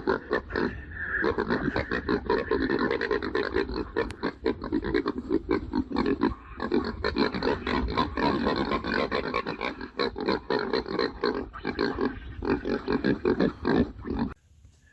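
Feral hogs squealing and grunting in a dense, continuous run of rapid calls that cuts off suddenly near the end.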